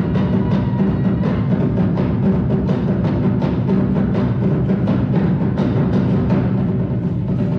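Live band music with heavy drums and percussion keeping a steady beat, heard from the audience.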